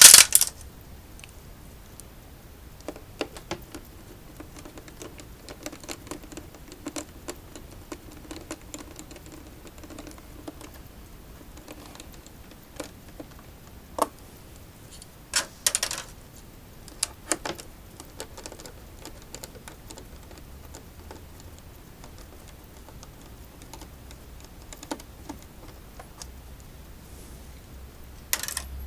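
Irregular clicks and knocks of small parts and hand tools being handled and set down while an electric unicycle is taken apart. There is a sharp knock at the start and a few louder clacks about halfway through and near the end.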